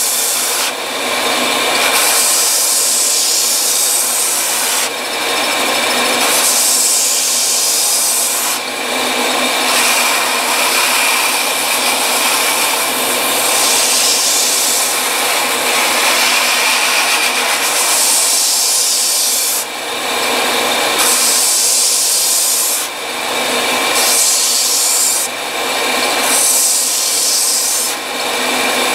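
Belt sander running with a steady whine while a wooden rifle stock's rubber recoil pad is pressed against the slack side of the belt, a coarse rasping that swells and drops every one to three seconds as the piece is worked on and off the belt. This is the shaping of the recoil pad flush with the wood.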